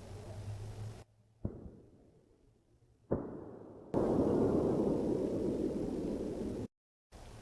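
Two sharp knocks about a second and a half apart, each fading away in an echo, recorded at night in the open. Then a louder rough rushing noise lasts nearly three seconds and is cut off abruptly.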